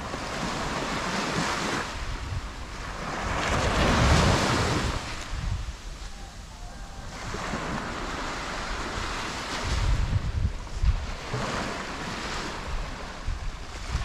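Small waves washing up on a sandy shore, the surf swelling and fading several times. Gusts of wind buffet the microphone, with low rumbles strongest about four and ten seconds in.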